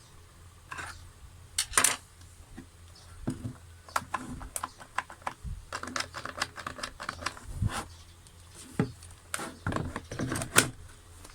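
Irregular clicks and knocks of small hard plastic parts being handled and fitted together, with the loudest knocks about two seconds in and near the end.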